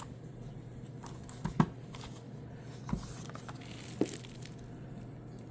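Handling of a boxed die-cast model car's packaging: three short sharp taps or knocks, the loudest about a second and a half in, with light rustling between them.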